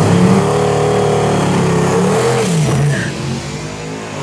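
Twin-turbo LS V8 of a box Chevy revving hard. Its pitch dips and climbs again about two and a half seconds in, and it grows a little quieter near the end as the car pulls away.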